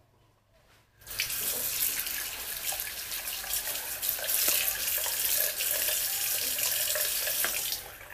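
Water from a tap running and splashing over hands into a ceramic washbasin. It starts about a second in, runs steadily, and drops away near the end.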